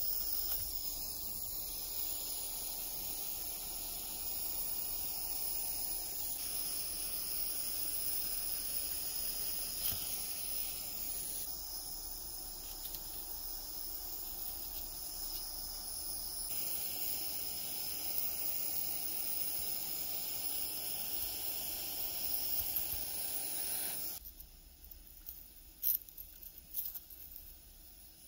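Steady high-pitched chorus of insects shrilling, with a few faint clicks of tin snips cutting sheet metal. It drops much quieter about four seconds before the end, where one sharp knock stands out.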